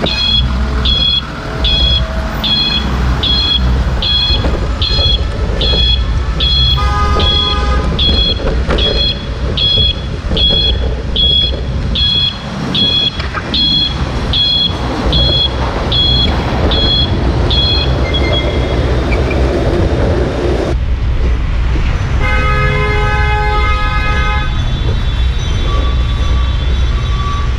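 Street traffic in gridlock: a steady low traffic rumble with a repeating high electronic beep, about one and a half beeps a second, that stops about eighteen seconds in. Car horns honk about seven seconds in, and a longer horn blast sounds between about twenty-two and twenty-five seconds in.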